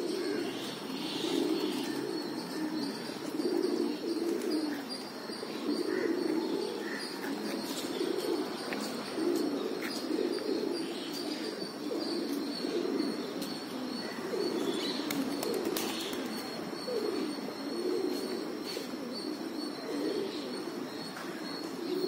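A flock of rock pigeons cooing, many low coos overlapping one another in a steady run.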